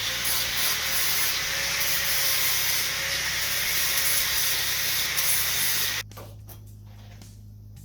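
Angle grinder with a flap disc smoothing a fresh weld on a steel mini bike frame: a steady, loud hiss that cuts off suddenly about six seconds in, leaving a low hum.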